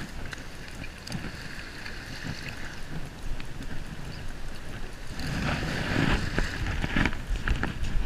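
Wind buffeting the microphone with a steady low rumble. About five seconds in it grows louder, with rustling and irregular crunching steps on wet sand.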